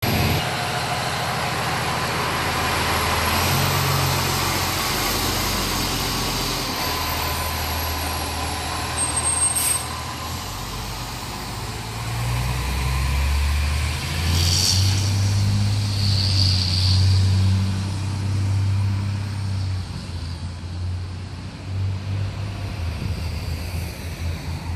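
Pierce fire engine-tanker's diesel engine running as the truck pulls out of the station and drives off, with one sharp air-brake hiss about ten seconds in.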